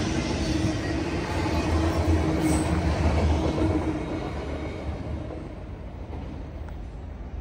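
Freight train of autorack cars rolling past on steel rails, a steady rolling noise from the wheels that fades as the last car goes by about halfway through and the train moves off.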